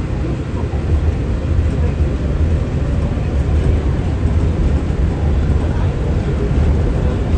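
Walt Disney World monorail in motion, heard from inside the car: a steady low rumble of its running gear and motors.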